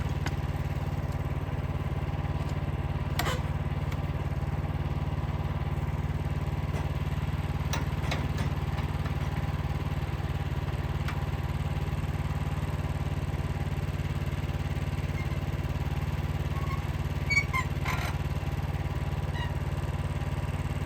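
Wood-Mizer LX55 portable sawmill's 14 hp engine running steadily at constant speed, with a few light knocks about 3, 8 and 18 seconds in.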